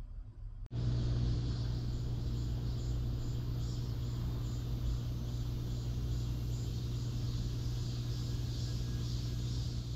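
Steady room ambience that cuts in abruptly about a second in: a low, even hum with a faint high-pitched buzz above it.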